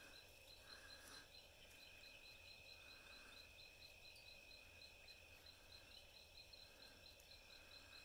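Night insects: a high, regular chirp about three times a second over a steady high-pitched trill, which drops out for a couple of seconds past the middle.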